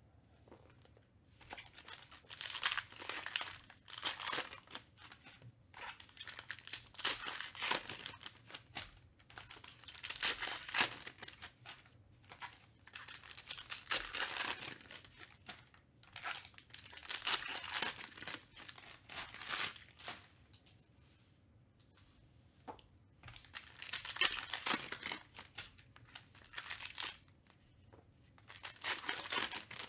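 Foil wrappers of Panini Mosaic football card packs being torn open and crinkled by hand, in repeated bursts of a second or two with short pauses between them.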